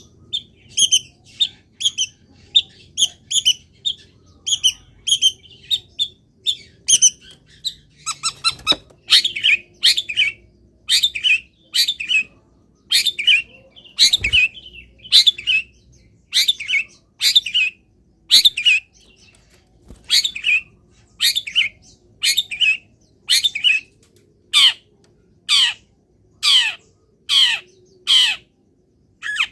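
Long-tailed shrike singing: a fast run of short chattering notes, then from about nine seconds in a string of loud, harsh falling calls repeated roughly once a second. Two faint knocks are heard in between.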